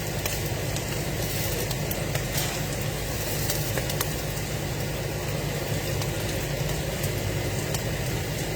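Pot boiling on a stovetop: a steady hiss over a low hum, with a few faint clicks.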